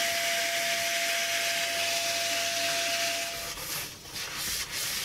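Vacuum cleaner hose sucking dust out of an opened turntable chassis: a steady rushing hiss with a faint whistle, which stops about three and a half seconds in. After it, a cloth rubs and wipes the plastic.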